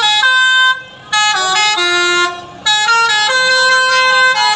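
Bus 'telolet' horn: a multi-tone musical horn playing a tune of stepped notes, in three loud phrases with short breaks about a second in and about two and a half seconds in.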